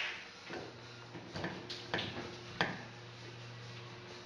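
Light metal clicks and taps of an adjustable wrench being set onto a shower head's nut, about five in the first three seconds, over a faint steady low hum.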